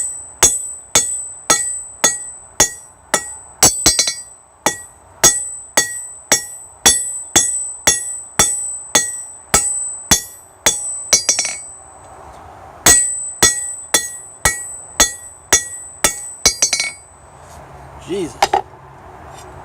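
Blacksmith's hand hammer beating out a hot titanium rod on an anvil, about two blows a second, each with a bright metallic ring, with a few quick light taps between. The blows pause briefly past the middle, resume, and stop a couple of seconds before the end.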